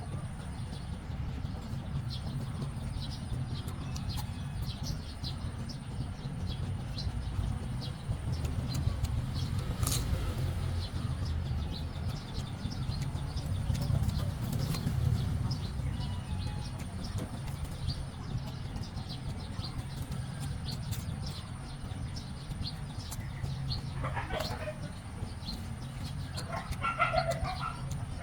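Chickens clucking in short calls about 24 seconds in and again near the end, over a steady low rumble and a continuous fine crackling.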